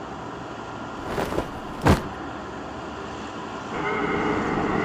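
Sound effects for an animated fight: a steady noisy rumble, then two sharp hits about one and two seconds in, the second the loudest. From about four seconds in, a louder steady mechanical hum takes over.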